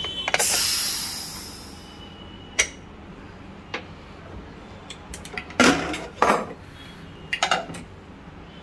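Aluminium pressure cooker being opened: a loud hiss of steam as the whistle weight comes off the vent, fading over about a second and a half. Then several metal clicks, then clanks and scrapes as the lid is twisted free and lifted off.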